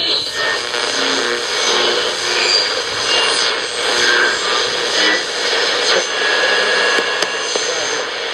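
Tecsun GR-88 radio's speaker giving steady hiss and static on the AM band, with faint whistles coming and going and no clear station audible.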